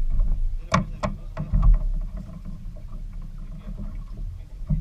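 Sounds aboard a small fishing boat: a steady low rumble, with two sharp knocks less than a second in, one shortly after the other.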